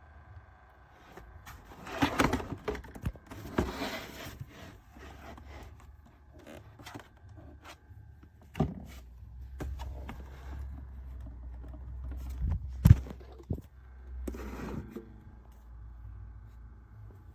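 Objects being handled: a run of irregular knocks, clicks and scrapes with some rustling, and one sharp knock louder than the rest about two-thirds of the way through.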